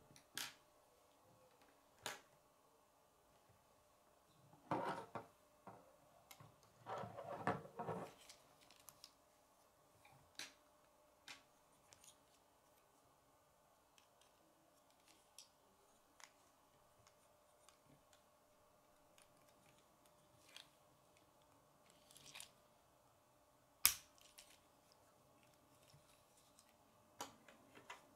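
Plastic K'nex pieces clicking and rattling as a hand-held gear model is handled: scattered light clicks, two short bursts of clatter about five and seven seconds in, and one sharp click later on that is the loudest sound.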